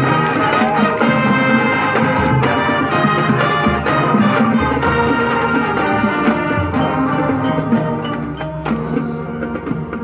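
High school marching band playing its field show: brass over drums and other percussion, easing off somewhat over the last few seconds.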